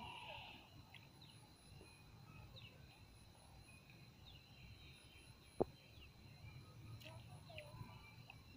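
Near silence outdoors: faint short bird chirps over a steady high tone, with a single sharp click about five and a half seconds in.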